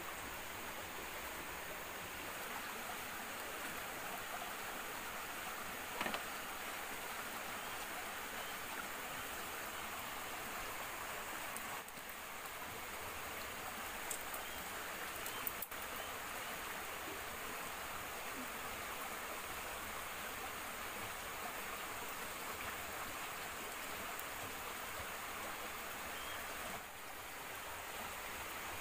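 Steady rushing of a forest stream flowing, with a few short clicks now and then, a little after the start and again around the middle.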